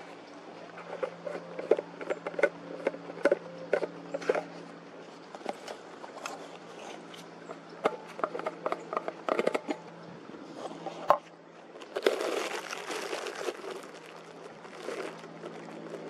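Packaging crinkling and crackling as raw steak is pulled out of it by hand: a run of sharp crackles and rustles, with a longer stretch of rustling about twelve seconds in, over a steady low hum.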